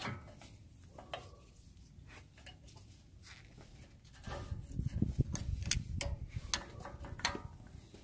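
Brake pads being pried out of a Toyota Tundra's four-piston brake caliper with needle-nose pliers: a few faint metal clicks, then from about four seconds in a louder run of clicking and scraping as the inner pad is worked out.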